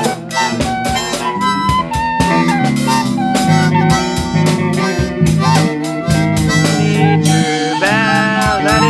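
Instrumental music: a harmonica playing a bending melody over guitar, bass and a steady drum beat.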